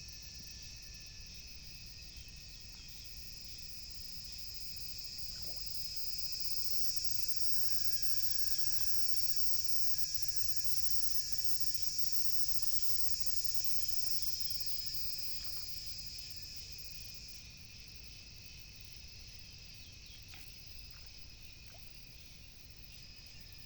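Steady, high-pitched insect chorus that swells louder for several seconds in the middle and then eases off, with a few faint clicks.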